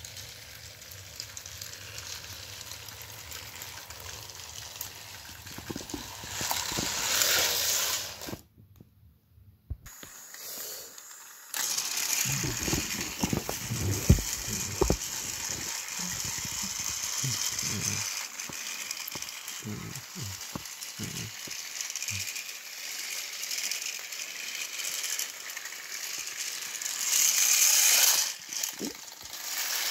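Motorised toy train engine running on plastic track with a steady hum. After a brief drop-out about eight seconds in, irregular plastic rattling and clattering with scattered knocks.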